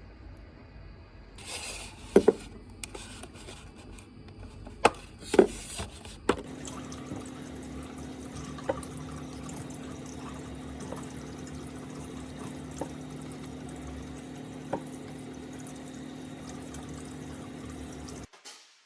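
A few sharp knocks and clacks, then water running steadily with a low hum underneath and a few faint ticks, cutting off just before the end.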